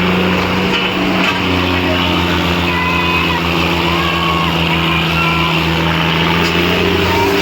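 Diesel tractor engines running hard and steady under heavy pulling load.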